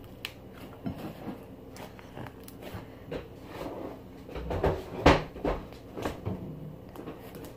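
Hands kneading and mixing slime with modelling clay into butter slime: irregular sticky squishes and small pops, with a louder thump about five seconds in.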